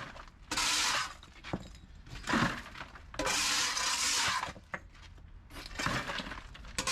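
Broken brick and mortar debris being shoveled up and dumped, scraping and clattering in several bursts, the longest about a second.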